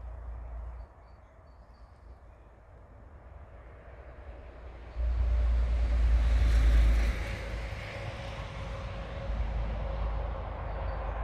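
A vehicle passing by: its noise swells to a peak about six seconds in and then fades, over a low rumble that jumps up abruptly at five seconds.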